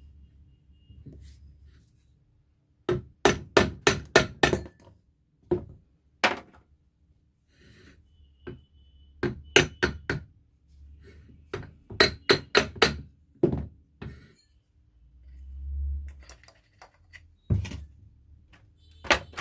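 Hammer tapping in short runs of several quick blows, with single strikes and pauses between.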